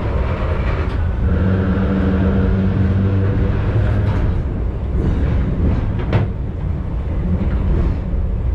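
Vintage electric train running through an underground tunnel, heard from inside the driver's cab: a steady rumble of wheels and running gear with a low hum, and a few sharp clicks from the track around the middle.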